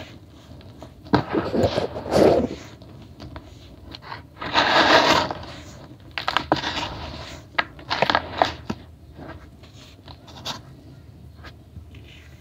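Hands squeezing and crumbling lumps of dry grey powder in a plastic tub, a crunching, hissing crumble as the powder sifts out through the fingers, in four bursts over the first nine seconds, then only a few faint ticks.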